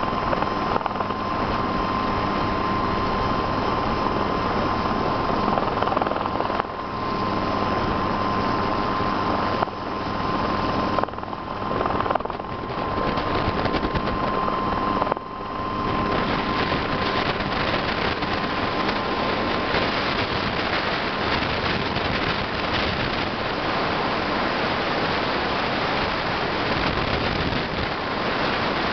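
Helicycle single-seat kit helicopter in a hover: the steady high whine of its small turbine engine over the low beat of the rotor and drivetrain, dipping briefly a few times. About halfway through the whine drops out and a steady rushing noise, like wind, takes over.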